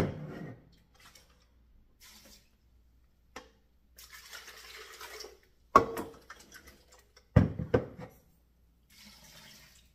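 Water poured from a plastic measuring jug into a blender jar to rinse out the leftover food, a splashing pour of about a second and a half. Then several sharp clunks as the plastic containers are knocked and handled, and a second short pour near the end.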